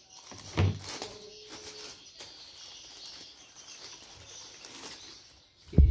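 Black plastic wrapping rustling and crinkling as it is pulled out of a cardboard box, with a dull thud about half a second in and a louder thump near the end.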